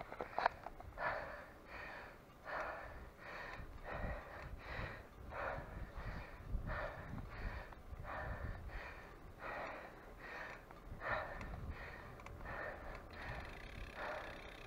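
A cyclist breathing hard from exertion: quick, heavy, regular breaths, about one every 0.7 seconds.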